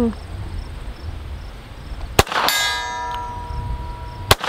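Two shots from a Hi-Point CF380 .380 pistol about two seconds apart. A moment after the first comes the ringing clang of a bullet striking a steel target plate, which rings for under a second; the second shot, near the end, brings no ring.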